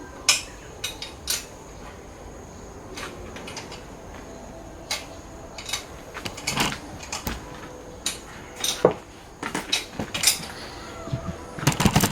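Metal tools and small metal engine parts clinking and clattering as they are handled on a workbench: scattered sharp clinks at uneven intervals, with a quick cluster of them near the end.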